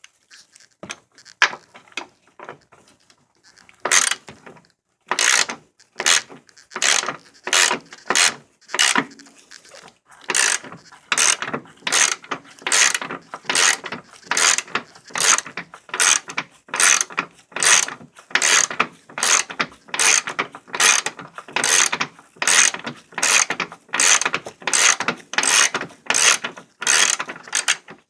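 Hand ratchet wrench clicking as it is swung back and forth to back out the upper control arm's mounting bolts. The strokes are halting at first, then settle into a steady rhythm of a little more than one a second.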